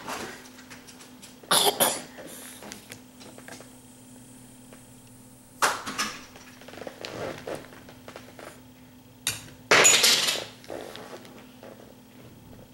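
Knocks and clatters on a wooden table beside a toddler's bowl, in three loud sudden bursts about four seconds apart, with a faint steady hum underneath.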